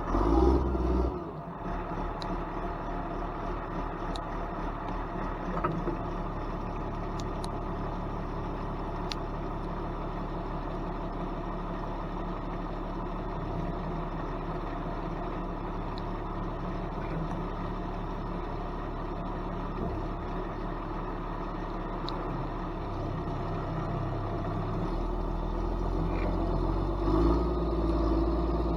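Diesel engine of a heavy logging machine catching and settling into a steady idle, with the engine note changing and growing louder near the end.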